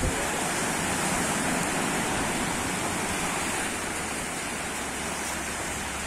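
Steady rushing noise of sea waves, with a brief knock right at the start.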